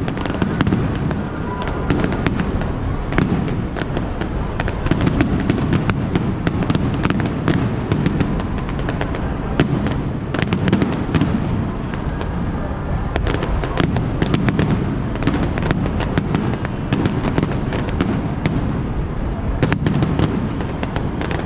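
Aerial fireworks bursting in quick, continuous succession: many sharp bangs and crackles over a steady low rumble.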